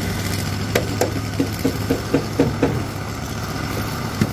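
An engine idling steadily under a run of about eight sharp metal knocks, about four a second, starting just under a second in, as engine parts are struck with a hand tool; more knocks come near the end.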